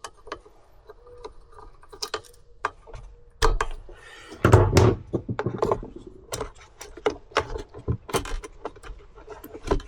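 Hard plastic clicks and knocks as the new primer bulb and the plastic housing parts of a Stihl BG 65C leaf blower are handled and fitted together, with a louder run of knocks about three and a half to five seconds in.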